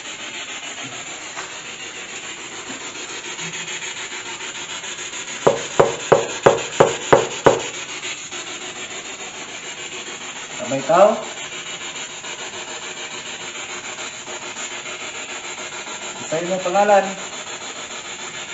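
A quick run of eight knocks, about four a second, over a steady hiss. Later come two short, wavering, voice-like sounds; the first rises in pitch.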